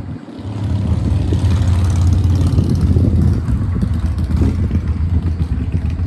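Wind buffeting the microphone outdoors: a loud, gusty low rumble that swells up within the first second and keeps surging.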